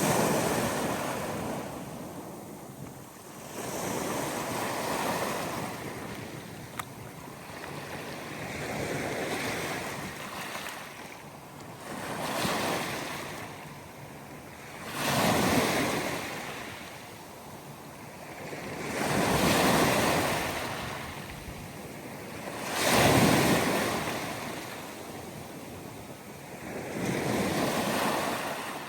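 Ocean waves surging and breaking in a steady series, each rush of water swelling and fading every three to four seconds, with the loudest waves in the second half.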